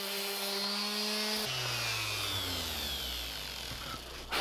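Random orbital sander running on a carved hardwood panel with a steady hum, then switched off about a second and a half in and winding down with a falling whine. A knock near the end as the wooden piece is handled.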